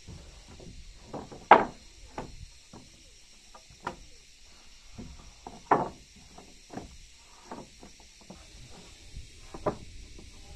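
Loose wooden floorboards knocking and clattering as they are set down and shifted on the floor joists: irregular knocks, the loudest about a second and a half in and again near six seconds.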